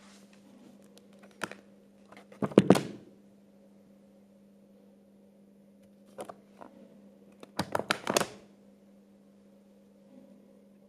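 A thick hardcover book closed twice, about two and a half seconds in and again around eight seconds. Each closing is a short flurry of paper and cover sounds ending in a soft thud, with a few lighter paper clicks between them. A faint steady hum lies underneath.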